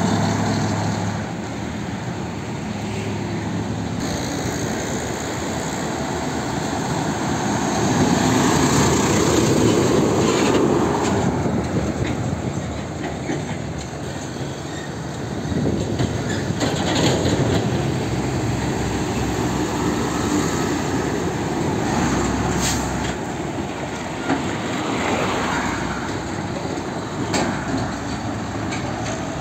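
Heavy diesel trucks driving past one after another, their engines running with tyre rumble and the rattle of trailers. The sound swells and fades as each truck goes by.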